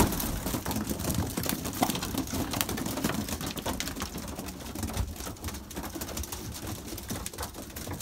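A flock of young racing pigeons pecking at feed on a loft floor: a rapid, irregular patter of beak taps, with some cooing.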